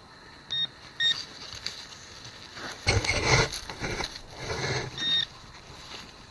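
Metal detector giving short, steady electronic beeps: two about half a second apart near the start and another near the end. In between come scraping, rustling sounds of digging in soil after the target.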